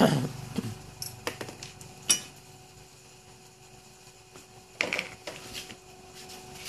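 Handling noise of a folding magnifier loupe and small round metal pieces being set down on a cardboard work mat: a string of light clicks and taps, loudest right at the start, about two seconds in, and a short cluster about five seconds in.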